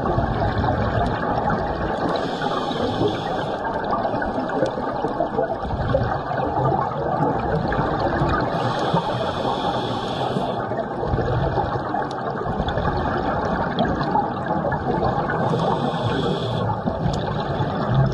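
Underwater rush and bubbling from a scuba diver's regulator. The diver's exhaled breath bubbles up in three separate hissing bursts, each one to two seconds long.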